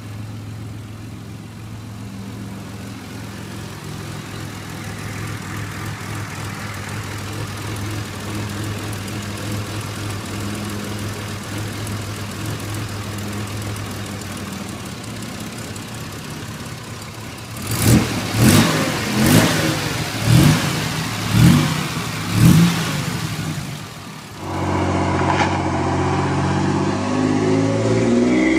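Buick 3800 supercharged 3.8-litre V6 idling steadily, then revved sharply six times in quick succession about eighteen seconds in. After a brief drop, another car's engine runs as it drives along, near the end.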